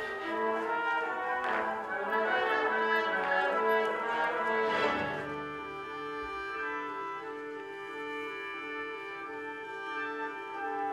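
Orchestral ballet music: full, held chords over a moving melody, then about halfway through it turns quieter, with a low two-note figure rocking back and forth.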